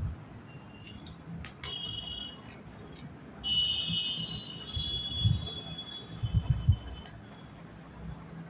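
Close-miked eating sounds: mouth sounds, small clicks and soft low thuds. A high, steady alarm-like tone starts about a third of the way in and lasts about three seconds.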